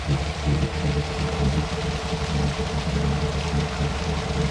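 Small waterfalls pouring and splashing into a pond, heard as an even rushing hiss over a steady low rumble and hum.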